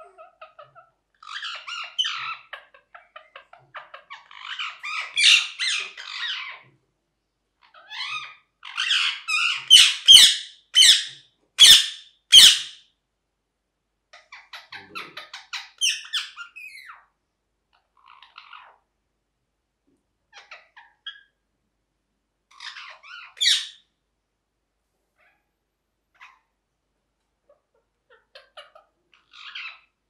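Ringneck parakeet calling in irregular bursts of chattering squawks. The loudest is a run of sharp screeches about a third of the way in, and after that only scattered shorter calls.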